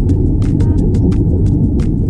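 Underwater sound: a loud, steady low rumble with irregular sharp clicks about five a second, and a brief squeaky tone about two-thirds of a second in.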